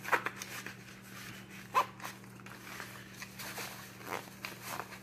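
A nylon zippered gear pouch being handled and zipped shut: soft rustling with a few short zipper rasps, the clearest about two seconds in.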